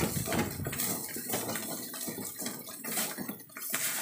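Wooden spatula scraping and tossing fried rice around a metal wok, over a steady sizzle as the rice fries towards crisp.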